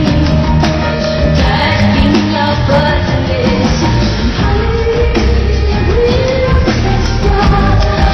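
Live rock band playing at full volume, with a woman singing over it.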